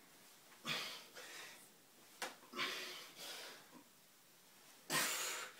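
A man's hard, effortful breathing while doing pull-ups on a doorway bar: loud breaths in bursts about every two seconds, with a short click a little after two seconds in.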